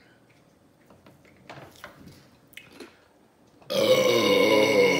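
A woman's long, loud burp near the end, held on one steady pitch for over a second, after a few faint clicks.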